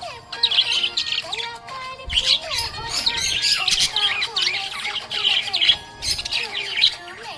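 Budgerigars chattering and chirping in quick, busy warbles, over background music.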